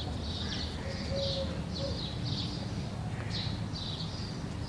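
Small birds chirping, quick short chirps several times a second, over a low steady rumble.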